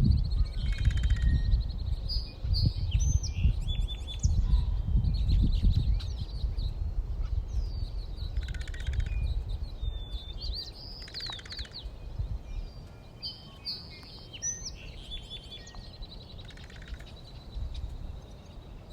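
Songbirds chirping and singing in short calls and trills, over a low rumble that fades after about six seconds.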